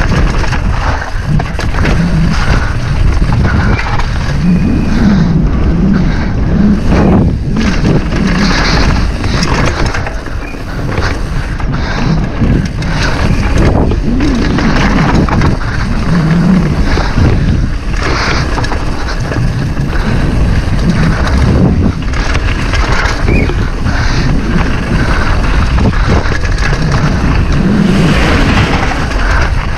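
Downhill mountain bike clattering and rattling over rough trail, with frequent knocks from roots and rocks, under wind rushing over the camera's microphone.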